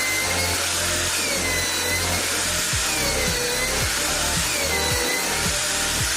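Drilling machine running steadily, with a whine that dips and rises again about every one and a half seconds.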